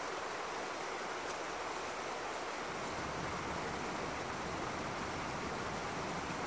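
Small woodland stream running over rocks and a little cascade: a steady, even hiss of water.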